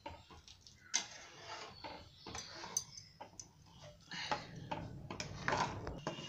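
A spatula stirring thick tamarind chutney in a non-stick pan: faint, irregular ticks and short scrapes as it drags through the sauce and touches the pan.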